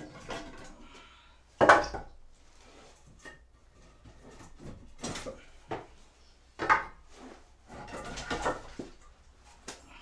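Log sections knocking and clunking against each other as they are shifted by hand in a woodpile, with scraping between the knocks. The loudest knock comes about two seconds in and another just before seven seconds.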